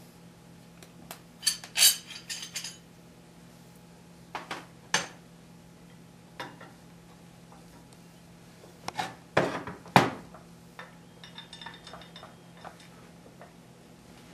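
Metal hand tools and a die masher's metal holder plate being picked up and set down on a workbench: scattered clinks and knocks, a cluster about two seconds in and the loudest pair about nine to ten seconds in, over a steady low hum.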